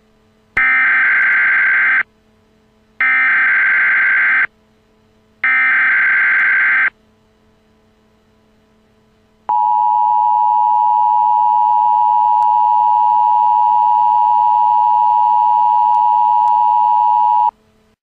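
Emergency Alert System SAME header: three bursts of buzzy digital data tones, each about a second and a half long with short gaps between. After a pause of a few seconds comes the EAS two-tone attention signal, sounding steadily for about eight seconds. The signal announces an Emergency Action Notification.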